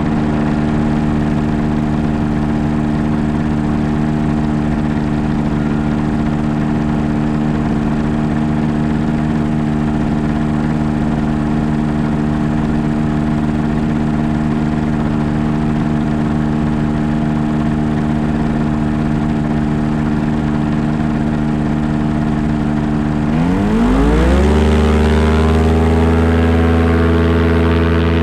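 Ford Thunderbird's engine running steadily at idle. About 23 seconds in its pitch sweeps quickly and it settles into a new steady, slightly louder note with a stronger low rumble.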